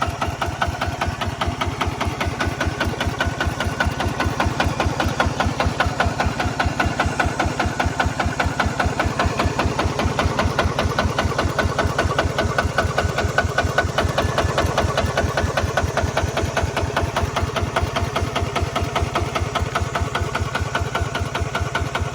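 Kubota RT155 Plus single-cylinder diesel engine of a walking tractor running steadily, its firing strokes coming as a fast, even train of pulses.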